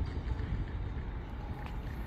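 Low, steady rumble of a train at a station platform.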